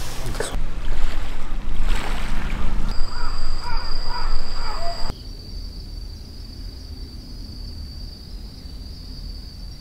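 A bird calls with short repeated caws, about half a dozen in two seconds, midway through. After that a steady, high, thin insect trill carries on quietly over faint outdoor background.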